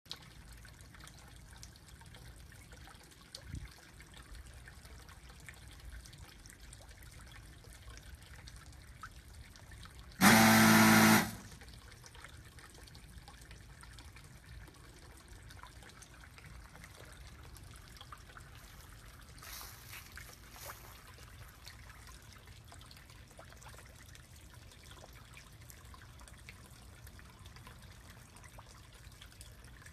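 Koi Cafe automatic fish feeder's motor whirring once for about a second as it dispenses feed, over a steady trickle of pond water.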